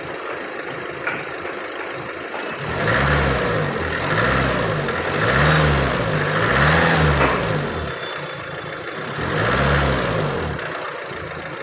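Renault Duster's four-cylinder diesel engine idling, then revved in a series of short throttle blips that rise and fall about every second and a half. With its four injectors freshly coded and no fault codes, it runs without the knocking rattle that the mechanic's work set out to cure.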